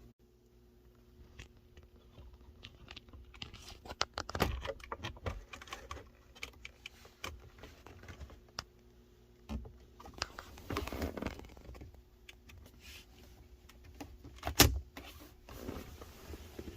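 Plastic car interior trim being handled: scattered clicks, taps and rustling, with a sharp knock near the end.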